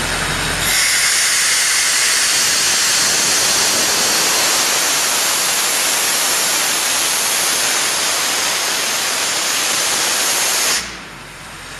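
Compressed air blowing off from a Leroi 185 CFM tow-behind air compressor with its Perkins four-cylinder diesel running: a loud, steady hiss that starts about a second in and cuts off sharply near the end, leaving the diesel running alone.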